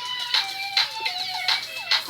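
Electronic music playing from a handheld music-mixing toy: a steady beat a little over two strokes a second, with short gliding synth notes over it.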